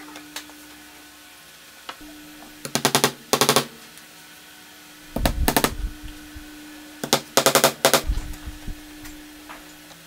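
Claw hammer driving nails into wooden boards on a wooden workbench: runs of rapid, sharp taps about three seconds in, again at five and a half seconds, and a longer run near eight seconds. A faint steady hum sits underneath.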